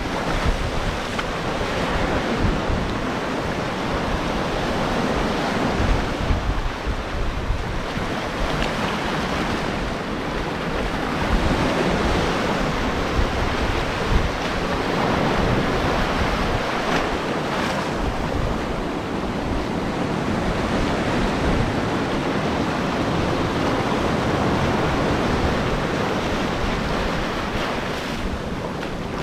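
Ocean surf breaking and washing on the shore, a steady rush that swells and eases every few seconds, with wind buffeting the microphone.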